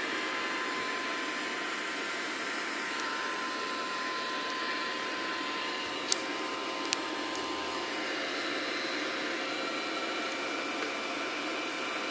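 Steady fan-like whir with a faint steady tone that fades out about two-thirds of the way through, and two sharp clicks about a second apart near the middle.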